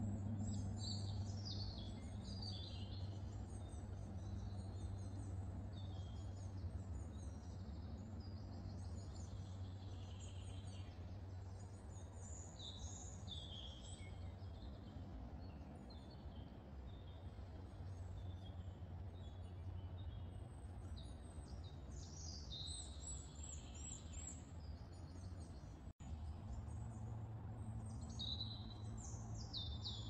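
Small songbirds singing and chirping, with many short high trills and calls one after another, over a steady low rumble of background noise. The sound drops out for an instant about three-quarters of the way through.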